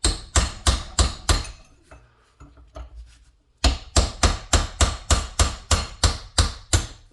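Hammer blows on a chisel, turning a hydraulic cylinder's gland to work its hook-shaped retaining wire out of the groove. A quick run of about five strikes, a pause of about two seconds, then a steady run of about a dozen, roughly four a second.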